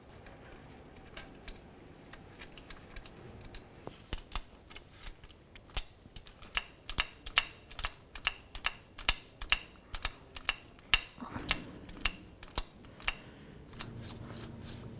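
Ratcheting wrench clicking in short, sharp ticks, about two to three a second, as the idler pulley's mounting bolt is run down into the engine. The clicks start a few seconds in and stop shortly before the end.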